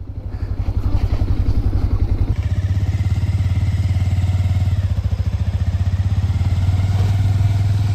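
Motorcycle engine running at low revs with an even, pulsing beat, becoming a little fuller and steadier about two seconds in.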